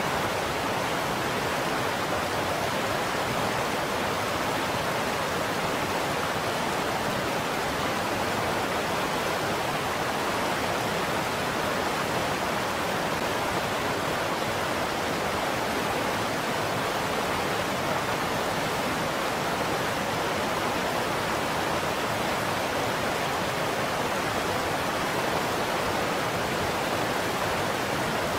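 River water rushing steadily over rocks and shallow riffles, an even unbroken rush.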